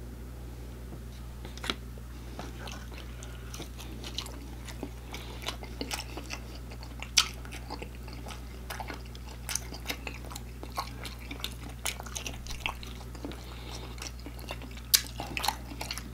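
Biting into and chewing a fried breaded chicken nugget dipped in barbecue sauce: a scatter of sharp crunches and clicks, the loudest about seven and fifteen seconds in, over a steady low hum.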